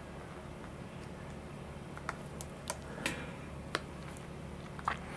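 A scatter of small sharp clicks and ticks from fingers pressing pinstripe tape down onto a thin clear plastic servo cover, most of them from about two seconds in, over a steady low hum.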